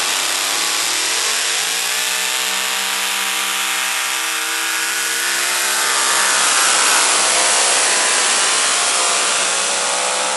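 Pulling truck's engine at full throttle, dragging a weight-transfer sled down the track. The revs climb during the first two seconds, then hold high and steady.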